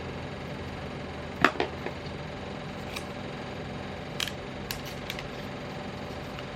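Scattered short clicks and taps from packaging being handled during an unboxing, the loudest a sharp click about a second and a half in, over a steady low hum.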